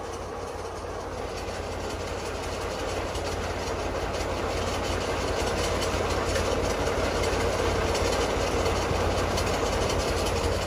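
Tractor engine driving a borewell pipe-lifting rig, a steady mechanical run with a fast rattling clatter, growing steadily louder.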